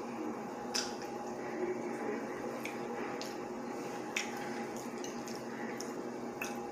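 Close-up eating sounds: chewing a mouthful of chicken and rice, wet mouth noises, and about five sharp clicks of a fork, over a faint steady hum.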